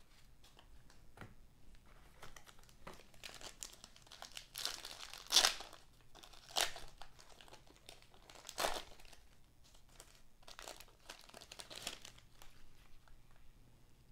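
Wrapper of a 1989-90 NBA Hoops basketball card pack crinkling as it is handled and torn open, with three louder crackles about five, six and a half, and eight and a half seconds in.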